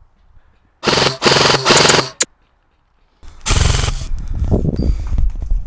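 Airsoft gun firing on full auto: two close bursts about a second in, then after a pause another burst, followed by scattered clicks and knocks.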